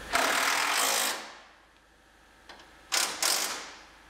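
Cordless power tool running bolts into a car's radiator support in two short bursts: about a second at the start and a shorter one about three seconds in.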